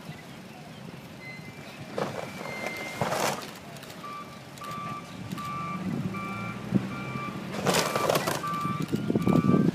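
Heavy demolition machinery backing up, its reversing alarm beeping steadily from about four seconds in over a diesel engine that grows louder, with several short crashes and crunches of debris.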